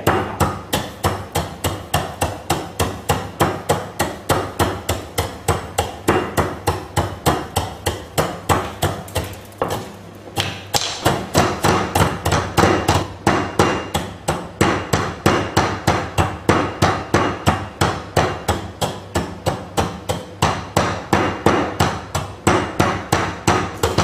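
Wooden pestle pounding toasted rice in a mortar, steady strokes about three a second with a brief pause about ten seconds in. The grains are being ground into toasted rice powder.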